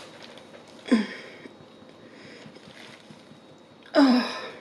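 Two short strained grunts, about a second in and near the end, each falling in pitch. They come from effort while trying to snap a spiny king crab leg by hand.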